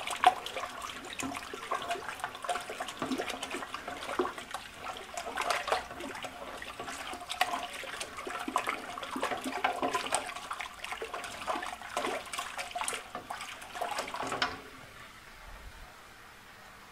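Water sloshing as a spoon stirs it in a large stainless steel stock pot, with small irregular clicks of the spoon against the pot: Brew Enhancer being stirred in to dissolve before the water boils. The stirring stops about fifteen seconds in.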